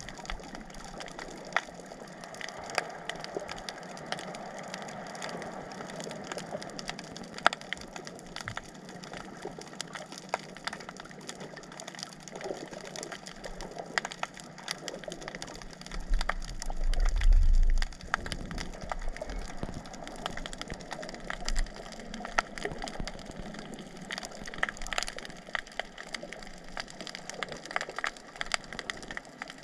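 Underwater ambience picked up by a camera below the surface: a constant crackle of small sharp clicks over a faint hiss. A low rumble swells for a couple of seconds about halfway through.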